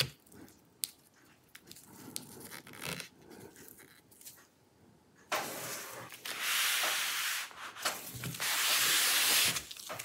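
Handling noise: a few faint clicks, then from about halfway a rubbing, scraping noise in several long bursts.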